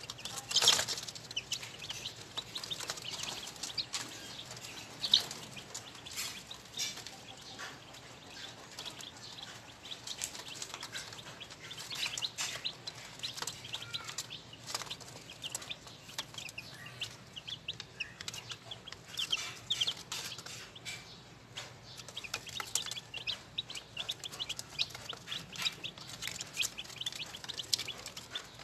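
Young Yellow-Legged Hatch gamefowl chicks peeping, many short high calls in quick overlapping runs, with a few sharp taps, the loudest about five seconds in.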